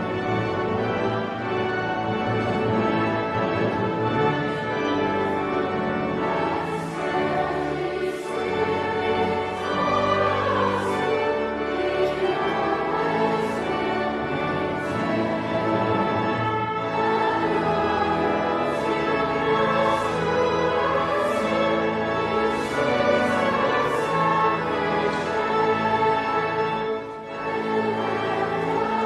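Classical music: voices singing with orchestral accompaniment, the sung lines wavering with vibrato.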